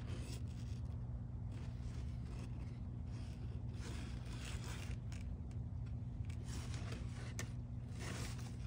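Brief bursts of rustling and scraping from crumpled packing paper and a cardboard box as a bobcat shifts inside, with a single sharp click near the end, over a steady low hum.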